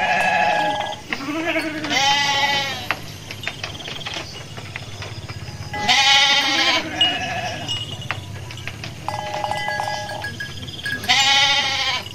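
Garut sheep bleating: three loud, wavering bleats about four seconds apart, with fainter bleats from other sheep in between.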